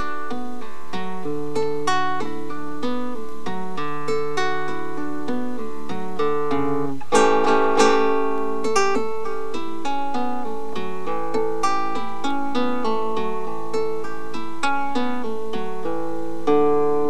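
Solo nylon-string classical guitar, held upright like a cello, playing a run of plucked single notes and chords, with a louder strummed chord about seven seconds in.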